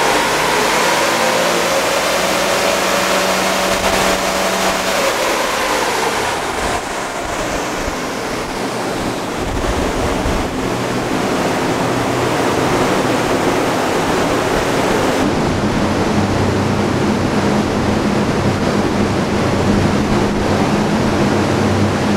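Turbocharged Toyota 1HZ 4.2-litre six-cylinder diesel in a Landcruiser 105 running under load on a chassis dyno, a loud rushing roar with the engine note climbing and then falling in the first few seconds. This is a dyno pull after a half turn of extra fuel on the injection pump's fuel screw. The high hiss thins about fifteen seconds in, leaving a steady low hum.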